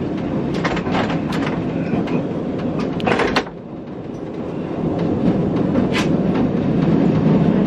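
Heritage tramcar running on street rails: a steady low rumble with scattered sharp clicks and knocks from the wheels and track, and a short harsh burst about three seconds in. The rumble drops abruptly just after the burst, then builds back up.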